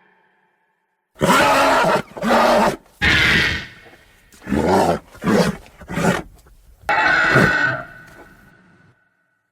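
Designed Pachycephalosaurus creature calls: seven separate pitched calls. The first three last about a second each, the next three are short and quick, and the last is longer and trails off.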